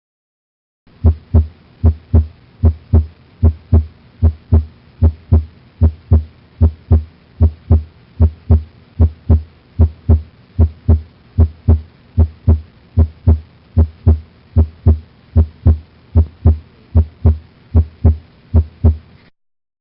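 Heartbeat heard through a stethoscope for auscultation teaching: a steady rhythm of paired lub-dub thumps (first and second heart sounds), a little over one beat a second. It starts about a second in and stops shortly before the end.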